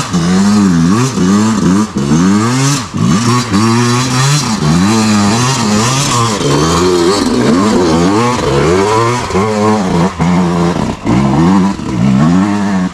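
Dirt bike engine revving hard under load on a steep, rutted hill climb. The pitch rises and falls again and again, about once a second, as the throttle is worked on and off.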